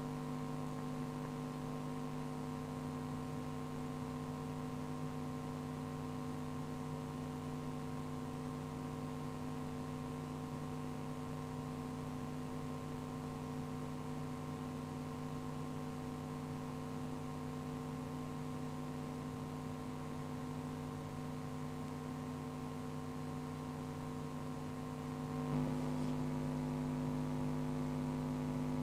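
Steady electrical hum made of several held tones over faint hiss, with no other events; it becomes slightly louder, with a low rumble added, about three seconds before the end.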